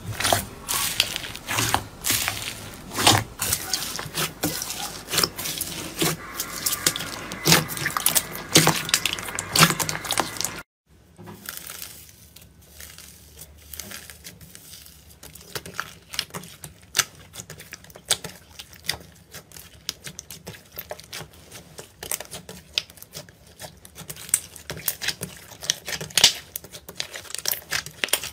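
Hands squeezing and kneading slime, making dense crackling and popping clicks. After a brief silent break about ten seconds in, quieter, sparser crackles and clicks follow as another slime is pressed and folded by hand.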